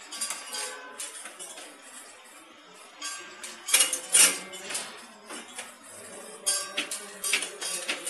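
Pharmaceutical tablets rattling and clinking through a stainless-steel tablet deduster and metal detector chute: a continuous irregular metallic clatter, with louder bursts about four seconds in and again around seven seconds.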